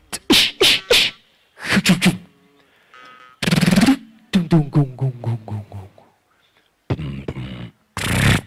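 Beatboxing into a microphone: sharp mouth clicks and hissing snare-like bursts mixed with short sung tones, in a stop-start pattern with brief gaps.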